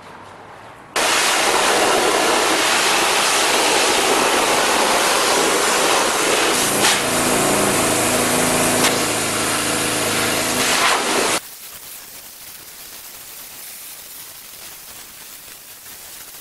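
Pressure washer jet blasting water onto the steel pickup bed to rinse off degreaser. A loud, steady hiss starts about a second in and drops sharply to a much fainter hiss about eleven seconds in.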